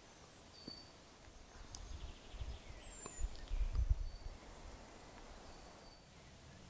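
Quiet pine-forest ambience with birds giving a few short, high chirps and a falling whistle about three seconds in. An irregular low rumble swells in the middle and peaks around four seconds in.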